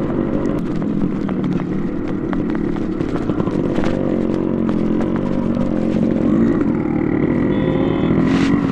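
Yamaha RX100's single-cylinder two-stroke engine running on the move through a custom expansion-chamber exhaust, its note wavering up and down a little with the throttle.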